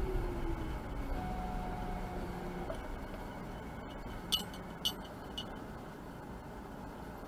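Car cabin road and engine noise dying away as the car slows to a stop, with a falling whine at first and then a low steady hum. A little past halfway come three light clicks about half a second apart.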